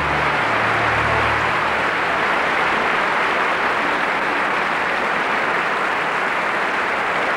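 Concert-hall audience applauding, dense and steady, while the orchestra's last low sustained notes die away in the first two seconds.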